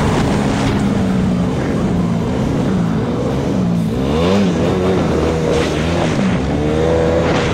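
ATV engine running under way, its pitch dropping and rising with the throttle, with a swing up and down about four seconds in and a climb near the end, over a steady rush of riding noise.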